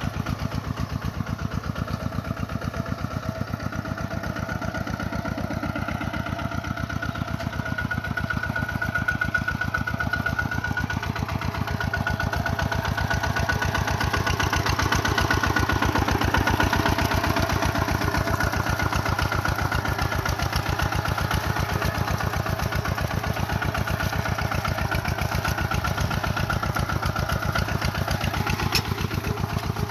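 Kubota tractor's diesel engine running steadily with a fast, even chug, pulling a little harder from about eight seconds in and then easing back.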